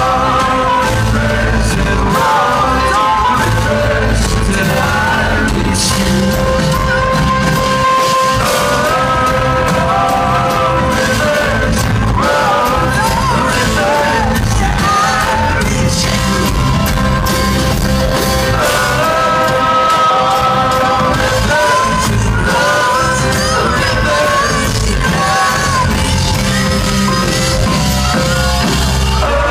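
Indie folk band playing a song live, with a lead voice singing over guitars, bass and drums, loud and unbroken.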